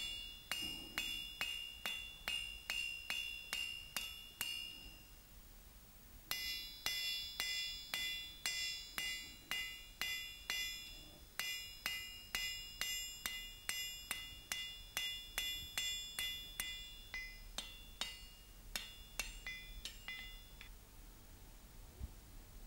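Hand hammer striking a red-hot iron bar on an anvil, about two or three blows a second, each with a bright metallic ring, flattening and widening the bar's pointed end into a leaf shape. The hammering stops briefly about five seconds in, resumes, then thins out and stops about two seconds before the end.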